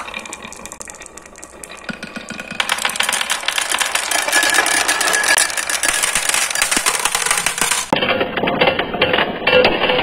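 Many marbles rolling and clattering along a carved wooden marble-run track, a dense continuous rattle of clicks that grows louder about two and a half seconds in. Later the balls knock and bounce among wooden pegs on a wooden board.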